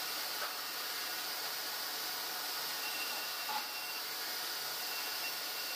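Steady noise of sawmill machinery running, with a faint low hum and a faint thin high whine that comes in twice in the second half.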